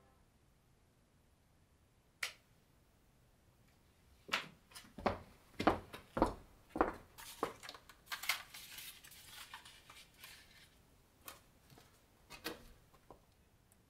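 A single sharp click about two seconds in, then footsteps of cycling shoes on a concrete floor, about two steps a second. After that comes faint rustling and a few light clicks as the road bike is handled.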